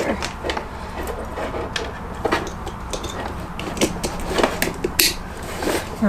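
Scattered small clicks and light knocks of hands working plastic wire connectors and wiring at a diesel heater, over a low steady hum.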